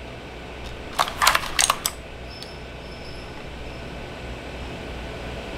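Clicky blue Otemu switches on an AULA F3261 keyboard clicking: a quick run of about five keystrokes about a second in, over a low steady background hum.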